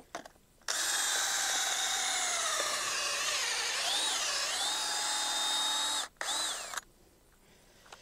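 Cordless drill with a large worn boring bit spinning down into pasture soil to pull up a soil sample: a steady motor whine that starts under a second in and wavers in pitch under load midway. It stops about six seconds in, runs again briefly, and winds down.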